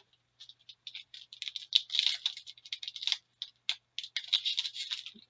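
Packaging of a box of Upper Deck Artifacts hockey cards being torn open and handled: rapid crinkling and crackling of wrapper and box material, with two denser spells of it.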